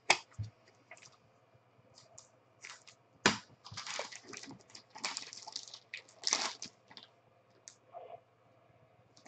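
Thin black plastic wrapper crinkling and tearing as a sealed pack is pulled open by hand: a sharp crackle about three seconds in, then bursts of rustling.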